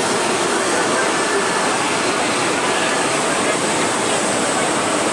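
Steady cabin noise inside a Boeing 777-300ER airliner: the even rush of its jet engines and airflow, with faint steady tones running through it.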